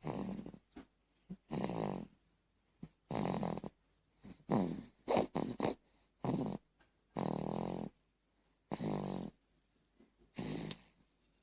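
A four-month-old baby snoring in her sleep, one snore on each breath about every one and a half seconds, with a few quicker short snorts about five seconds in.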